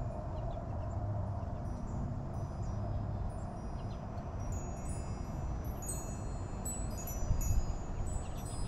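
Wind chimes ringing: several clear high tones sound and fade, most of them in the second half, over a steady low rumble.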